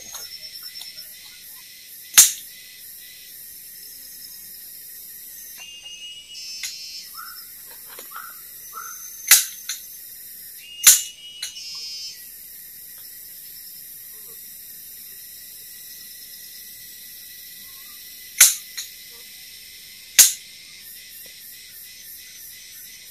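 Five sharp knocks from work on the bamboo shelter frame, spaced unevenly, some followed by a smaller knock, over a steady high chorus of forest insects. A few short chirps come near the middle.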